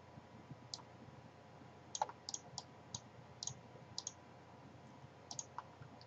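Faint computer mouse clicks, about a dozen at irregular intervals, some in quick pairs, as the cursor works in the software.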